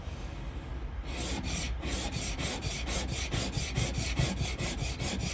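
Steel wood lathe tool being rubbed back and forth by hand on a medium-grit diamond sharpening plate, starting about a second in: a quick, even scraping rhythm of about four strokes a second.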